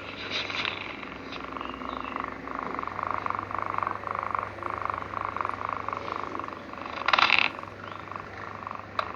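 Sleeping cat snoring in a fast, even pulsing rasp. A short louder burst of noise comes about seven seconds in, and a sharp click near the end.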